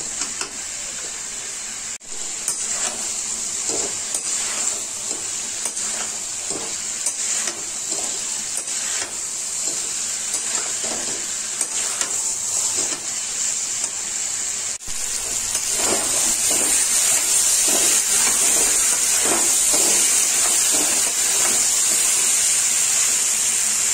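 Drumstick and potato curry sizzling as it fries in a kadhai, with a metal spatula scraping and knocking against the pan as it is stirred again and again. The sizzle grows louder about fifteen seconds in.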